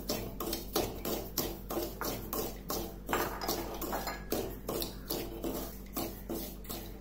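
A spoon or spatula stirring semolina roasting in ghee in a pan, scraping and clinking against the pan in a steady rhythm of about three strokes a second.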